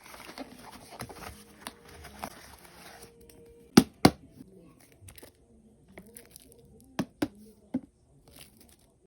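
Plastic wrapping on a book being torn open and crinkled for about three seconds. Then come a few sharp knocks and clicks from handling: two loud ones about four seconds in and three more around seven seconds.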